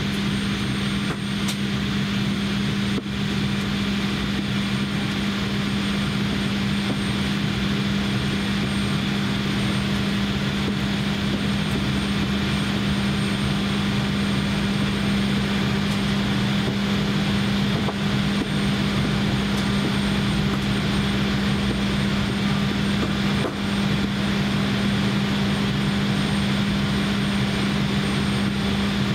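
Steady cabin noise aboard an Embraer E170 standing at the gate before pushback: an unchanging drone with a strong low hum running throughout.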